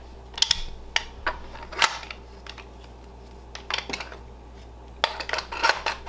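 Metal clicks and clacks from a steering-wheel quick-disconnect hub as its two aluminium halves are handled and pushed together. A quick run of sharper clicks comes near the end as the hub snaps into place.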